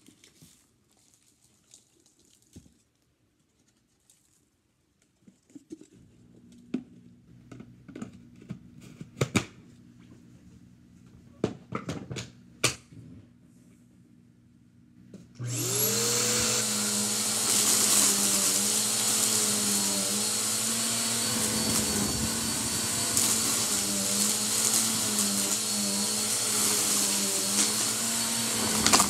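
Scattered clicks and knocks as the bagless upright vacuum's plastic dust canister is handled and emptied. About halfway through, the Bissell upright vacuum cleaner is switched on and runs steadily, its pitch wavering slightly as it picks up a heap of lint.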